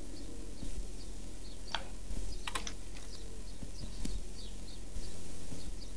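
Scattered small clicks and taps of hands working on a small electronic device, the strongest a little under two seconds in and again about halfway, over a faint run of high chirps repeating about three to four times a second.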